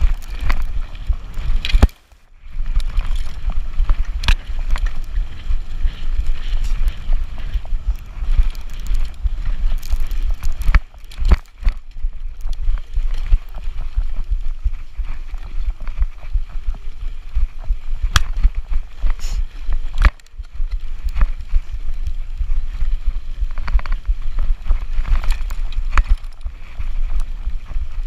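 Wind rumbling on the microphone, with the rattle and sharp knocks of an e-bike ridden fast over a bumpy dirt forest trail. The rumble drops away briefly three times.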